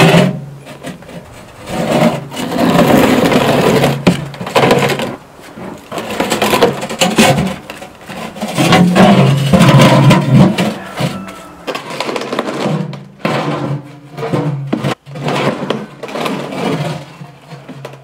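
Heavy concrete countertop slab scraping and grinding against the steel loader bucket and plywood as it is slid and levered into place, in several long, loud scrapes, the loudest about two seconds in and again about nine seconds in.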